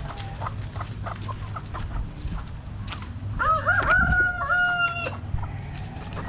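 A rooster crows once, a single pitched call of nearly two seconds about halfway through, over soft clucking from the flock.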